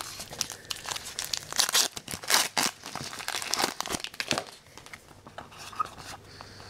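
Hockey card pack wrapper crinkling and tearing as it is pulled open by hand and the cards are slid out. The crackling is dense for the first four seconds or so, then thins to lighter rustling as the stack of cards is handled.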